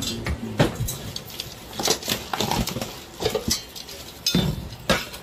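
Stainless steel pots, pans and lids clinking and knocking against each other and the cardboard box as they are handled, in several irregular knocks.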